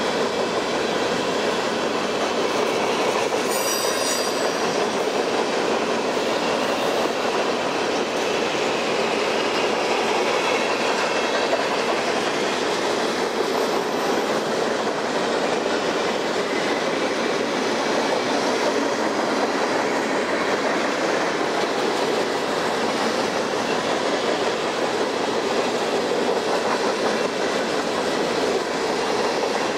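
Empty covered hopper cars of a long freight train rolling past at speed: a steady noise of steel wheels on the rails that keeps on without a break.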